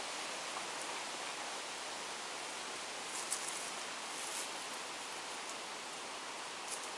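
Steady even hiss of woodland outdoor ambience, with a few faint short ticks a little past the middle and again near the end.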